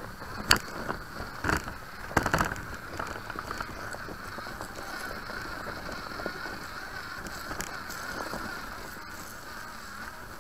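Onboard sound of an FTX Ravine RC crawler driving over rough ground: its electric drivetrain whines steadily while the chassis knocks and rattles over bumps, with a few sharp knocks in the first few seconds.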